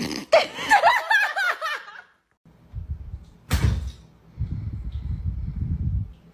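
A cat meowing in quick, wavering cries for about two seconds. Then a single sharp knock, followed by a low rumble.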